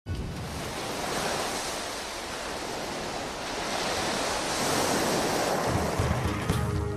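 Rushing surf sound of sea waves, swelling and easing as a continuous wash of noise. Low music notes come in near the end.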